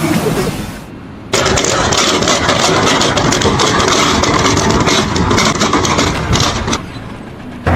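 An engine running loudly with a clattering, noisy sound. It starts abruptly about a second in and drops away shortly before the end.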